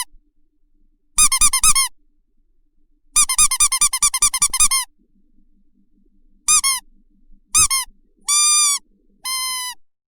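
High-pitched squeaks in quick bursts of several at a time, then two single squeaks and two longer, held squeaks near the end.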